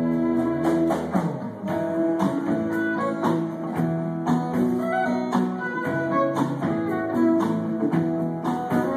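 Instrumental guitar passage of a folk-pop song: a guitar strumming chords in a steady rhythm, with no singing.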